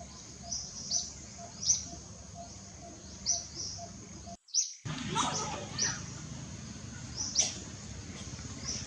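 Small birds chirping: short high chirps a few times a second over a steady low background hiss, with a brief dropout about halfway through.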